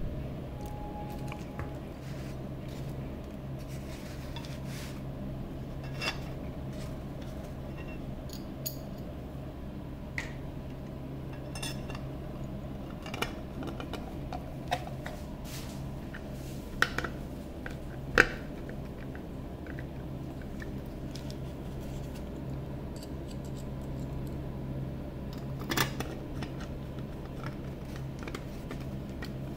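Scattered small metallic clicks and taps as a screwdriver drives screws and black metal chassis panels and rails are handled, the sharpest knock about 18 seconds in. A steady low hum runs underneath.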